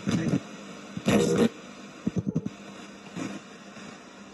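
Ghost box: a radio sweeping rapidly through stations, giving short clipped fragments of broadcast voice about once a second between stretches of static hiss.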